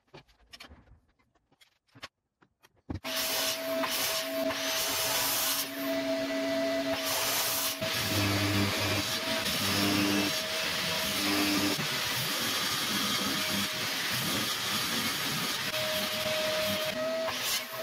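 A few light knocks of wood being handled, then about three seconds in a benchtop table saw starts and runs steadily with a hum and whine, its note changing as the blade cuts through hardwood strips.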